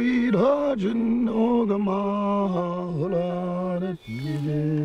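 A single voice chanting in long held notes, a mourning chant for a burial. It breaks off briefly about four seconds in and comes back on a lower held note.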